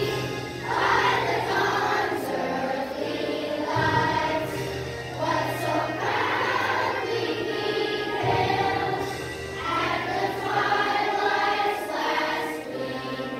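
A large group of school children singing a song together as a choir.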